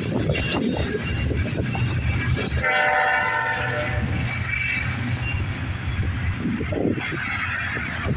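Freight cars rolling past with a steady rumble of wheels on rail. About two and a half seconds in, a train horn sounds for about a second and a half.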